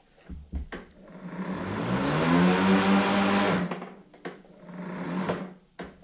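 Greenworks 40V battery lawn mower's electric motor and blade spinning up with a rising whine and rush of air as the bail handle is pulled back. It runs for about two and a half seconds, then cuts off and winds down. A few clicks from the handle and tools come before and after.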